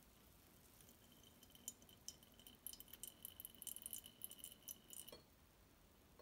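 Faint crackling and trickling as a cloth bag of mashed avocado is squeezed by hand and its oil runs in a thin stream into a glass measuring jug; the sound stops suddenly about five seconds in.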